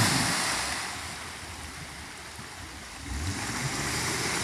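Jeep Wrangler's wheels churning through a muddy water hole, muddy water splashing and spraying, with the engine running under load. The engine eases off about a second in and picks up again about three seconds in.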